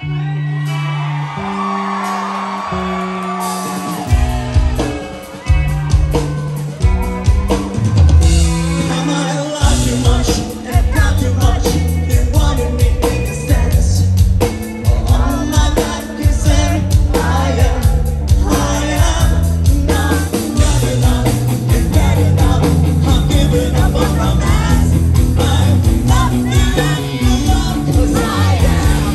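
Rock band playing live with a male lead singer, loud, heard from the crowd. It opens sparse, with held low notes under the vocal, then turns choppy and the full band with drums comes in about ten seconds in.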